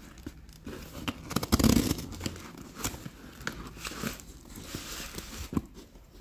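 Packing tape and cardboard being torn and pulled open on a parcel by hand, with irregular crackling and crinkling as the box is handled; loudest about one and a half to two seconds in.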